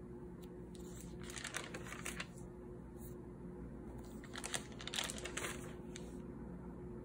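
Paper pages of a spiral-bound notebook turned by hand, rustling twice: once about a second in and again around the middle.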